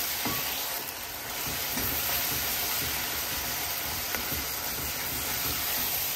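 Chopped tomatoes, onions and green peppers sizzling as they fry in oil in a pot, stirred with a spatula, with a few light clicks of the spatula against the pot.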